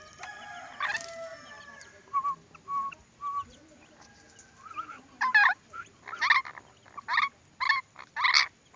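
Ornate lorikeet calling: a short gliding chatter about a second in, three brief whistled notes, then a run of about six loud, harsh squawks in quick succession over the last few seconds.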